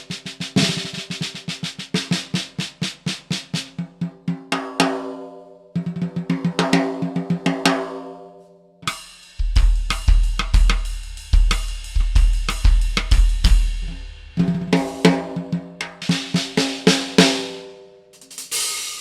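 Dixon 14x6.5 Classic Series snare drum (6-ply maple shell, Evans UV1 batter head) played in fast phrases and rolls, each phrase left to ring out with clear pitched overtones. About nine seconds in a bass drum joins under the snare for about five seconds.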